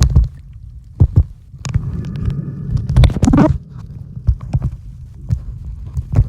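Muffled handling noise from a camera sealed in a waterproof case: a low rumble with irregular knocks and thumps, and a short rushing swell about three seconds in.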